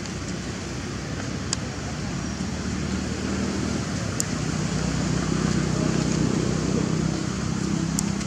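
Steady outdoor background rumble and hiss, with a few faint clicks.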